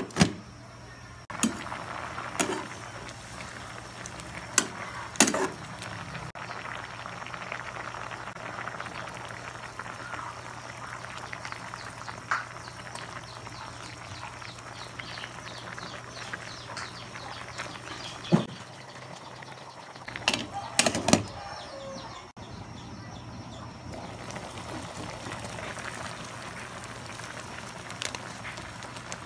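Pot of soup boiling on the stove, a steady bubbling hiss, with sharp clanks of the lid and utensils against the pot now and then, two close together about twenty seconds in.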